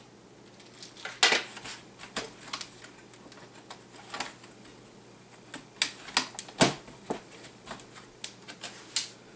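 Irregular small clicks and taps of plastic tablet parts being handled and pressed together during reassembly of a Motion Computing LE1700. The two loudest knocks come about a second in and about two-thirds of the way through.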